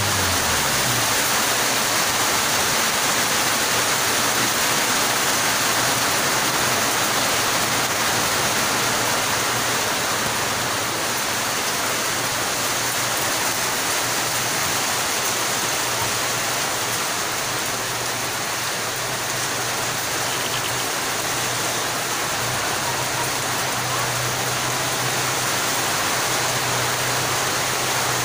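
Heavy rain pouring down in a steady, dense hiss, with a faint low hum in the background near the end.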